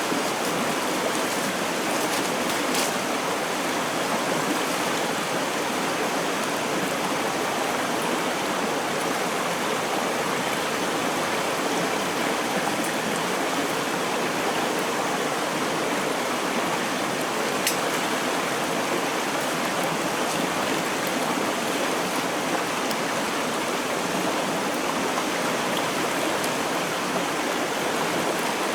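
Clear mountain stream flowing steadily, a continuous rush of water, with a couple of brief faint ticks.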